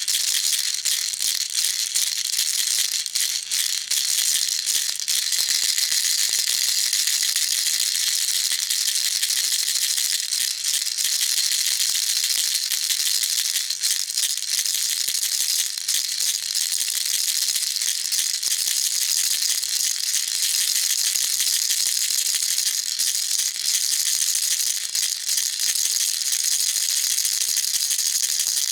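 Baby rattle shaken continuously: a steady, dense rattling of small beads, high and hissy, with no pauses.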